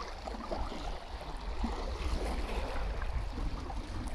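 Wind rumbling on the phone microphone over the lapping of shallow, choppy lake water around the waders' legs.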